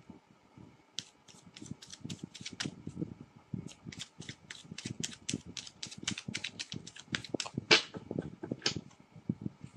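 Tarot cards being shuffled by hand: a quick run of sharp card clicks and slaps, several a second, starting about a second in, with one louder slap about three-quarters of the way through.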